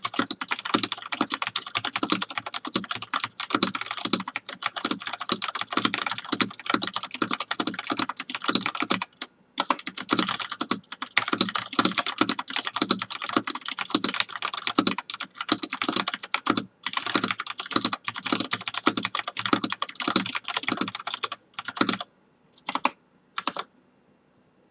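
Fast typing at around 111 words per minute on a Filco Majestouch 2 Tenkeyless mechanical keyboard with thick PBT keycaps: a rapid, unbroken clatter of keystrokes with two brief pauses. About 22 seconds in it thins to a few last keystrokes.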